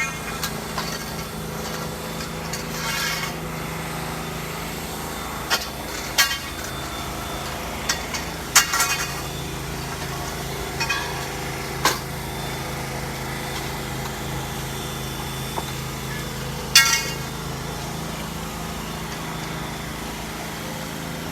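Metal tent frame poles clanking and knocking as they are pushed into their fittings, a dozen or so sharp hits, some ringing briefly, the loudest about 9 and 17 seconds in. A steady engine hum runs underneath.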